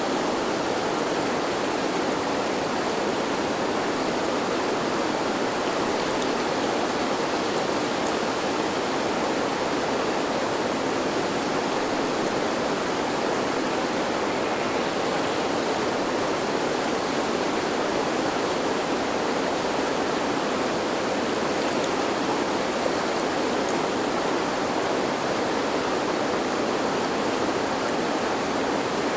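River water flowing steadily, an even continuous rushing of water.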